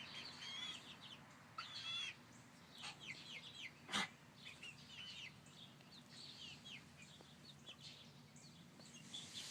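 Young chickens peeping and cheeping, many short chirps in quick succession, faint. A single sharp knock sounds about four seconds in.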